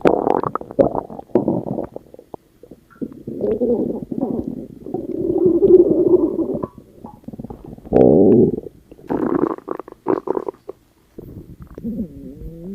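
Stomach growling in a run of separate rumbles. The longest lasts about three seconds, and a short loud one comes about eight seconds in.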